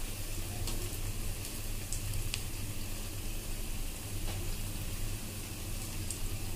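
Mashed-potato rings deep-frying in refined vegetable oil in an aluminium kadai: a steady sizzle of bubbling oil, with a few faint clicks as a steel spatula moves the pieces.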